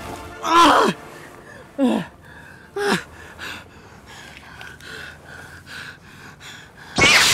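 A man's pained vocal cries, three short ones falling in pitch, then ragged panting breaths about twice a second as he lies hurt. A loud sudden sound cuts in near the end.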